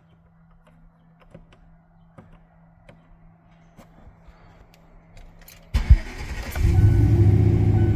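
Faint small clicks, then about six seconds in the turbocharged GMC Sierra's engine cranks, catches and settles into a steady idle.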